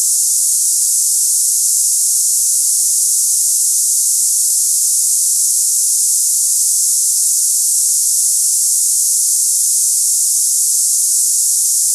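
Tinnitus sample sound of the cicada-like hissing kind: a steady high-pitched hiss with no low end, unchanging in level throughout.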